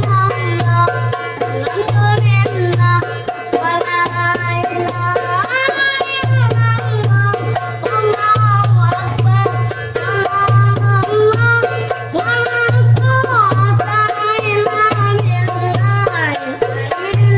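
A boy singing a sholawat devotional song in a bending melodic line while playing a darbuka goblet drum with quick hand strokes, over a pulsing low bass.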